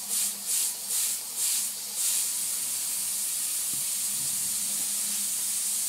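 Weeden 902 toy steam engine's oscillating cylinder puffing out exhaust steam in rhythmic chuffs, a couple a second and slowing, that about two seconds in give way to one steady hiss of escaping steam.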